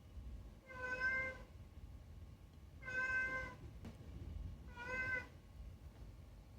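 Domestic cat meowing three times, evenly spaced about two seconds apart, each meow short and clear.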